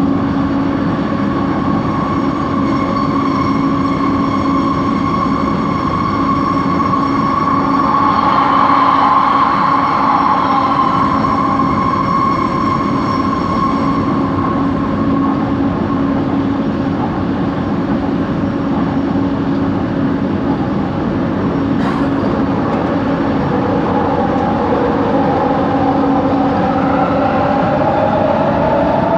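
Light-rail train car running, heard from inside, with a steady hum under the traction motor whine. The whine falls in pitch about a third of the way in and rises again near the end. This is coach 4's unusual motor noise.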